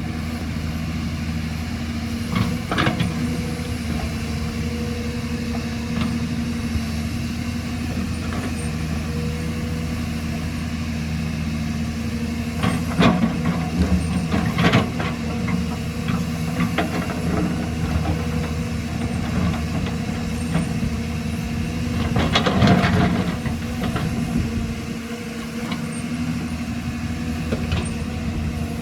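Excavator's diesel engine running steadily, with a few sharp clanks and a louder, longer scraping stretch about 22 seconds in.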